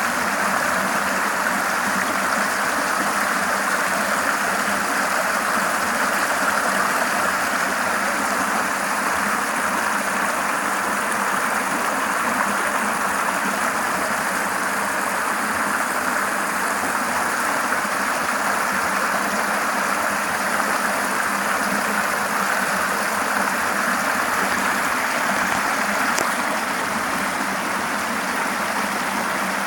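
River water flowing and rushing steadily, an even, unbroken wash of sound.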